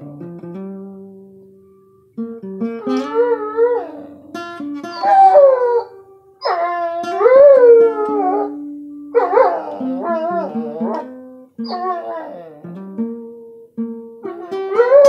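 A dog howls along to a slow blues played on a plucked guitar. There are about six long, wavering howls that rise and fall in pitch, louder than the guitar notes held beneath them.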